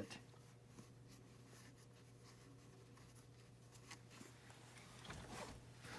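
Near silence over a low steady hum, with faint rubbing and small handling noises, a little louder near the end, as pipe dope is worked onto the threads of a gas fitting.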